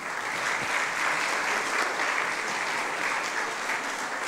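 Audience applauding, slowly dying down near the end.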